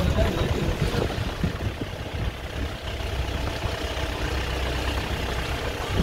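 Vehicle engine and road noise heard from inside a moving car: a steady low rumble under a hiss.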